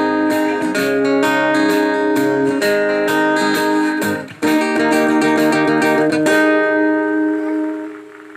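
Instrumental break of a children's song: strummed guitar chords over a steady beat, with a brief pause about four seconds in and the music fading near the end.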